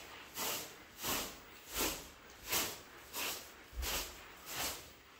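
Straw hand broom sweeping a carpet in quick, even strokes, one swish about every three-quarters of a second, seven in all.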